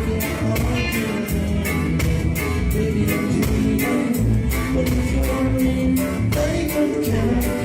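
Live reggae band playing with a steady drum beat and guitar.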